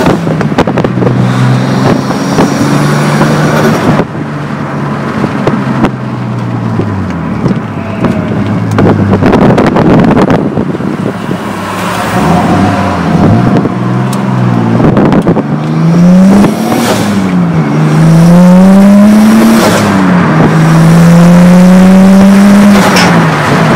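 Nissan Skyline R33 GTS-T's turbocharged RB25DET straight-six, tuned to about 360 bhp, heard from inside the cabin as the car drives and accelerates. The engine note climbs and falls several times, each climb cut off by a sudden drop in pitch at a gear change, with the longest pulls near the end.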